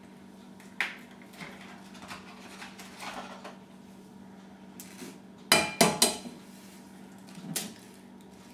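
An egg being knocked against the rim of a metal bowl to crack it: a quick cluster of three or four sharp ringing clinks a little past halfway, with a few lighter knocks around it.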